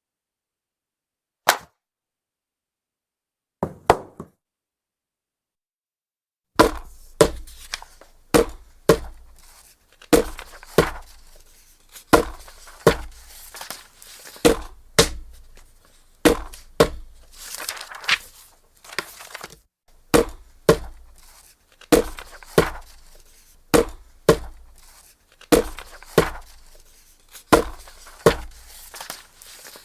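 Old rubber stamp striking paper on a desk. There is a single thud, then a quick double stamp. After a pause comes a long run of steady stamping, about one or two strikes a second, each a short knock.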